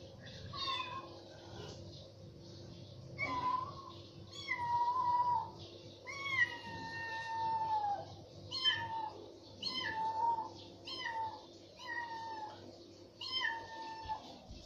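A kitten meowing over and over in a high pitch, roughly once a second. Each meow falls a little in pitch, and a few are drawn out for one to two seconds.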